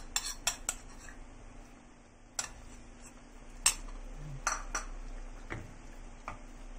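A plastic cooking spoon knocking and scraping against a wok as thick beef stew is stirred, giving about ten scattered sharp clicks, the loudest a little past the middle.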